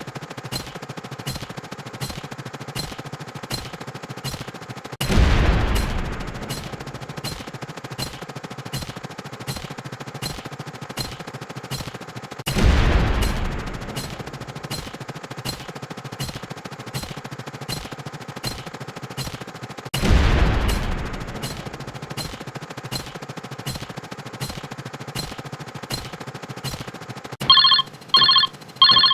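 Rapid string of short explosion sound effects, about two or three a second, each cut short, with a longer, louder boom three times about seven seconds apart. Near the end a telephone ring tone starts, ringing in short repeated bursts.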